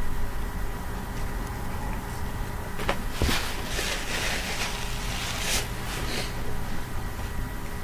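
Paper rustling and crinkling for a few seconds, starting about three seconds in, as a burger held in paper is lifted and bitten.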